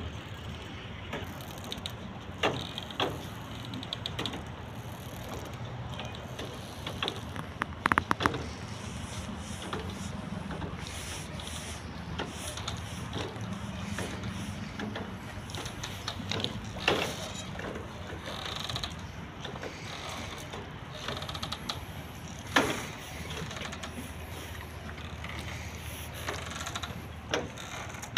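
Irregular creaks, clicks and knocks from moored boats and their mooring lines in a marina, over a steady low background noise. The loudest is a quick rattle of clicks about eight seconds in.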